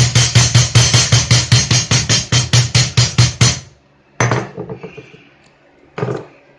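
Background music with a fast, steady drum beat, about five hits a second. The beat drops out about three and a half seconds in, and two single knocks sound during the break.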